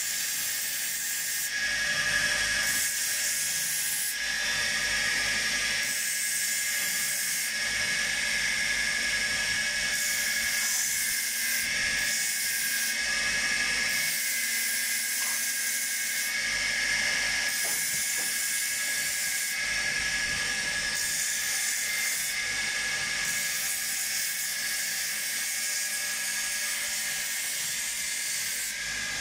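Spindle-mounted sanding wheel running with a steady high whine, and the hiss of a rosewood walking-stick handle being sanded against it. The hiss swells and drops every second or two as the wood is pressed on and eased off.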